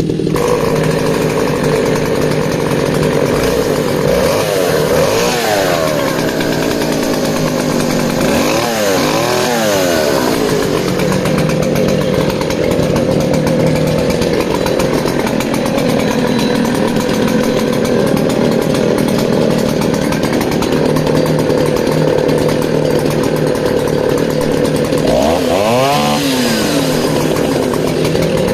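Vintage 1960s Stihl two-stroke chainsaw running steadily at idle, revved up and back down three times: about four seconds in, about eight seconds in, and near the end.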